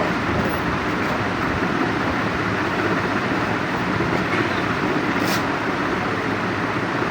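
Steady, even machine noise running throughout, with a brief high-pitched hiss about five seconds in.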